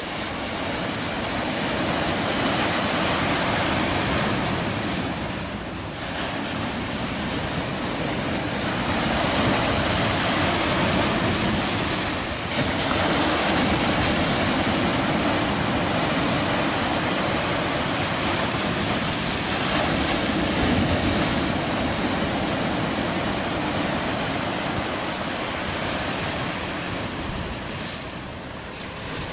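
Sea surf washing against a rocky shore: a steady rushing noise that swells and eases every few seconds.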